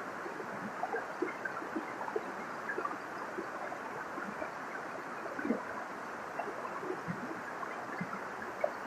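Waterfall running steadily, its water rushing with many small gurgles and splashes.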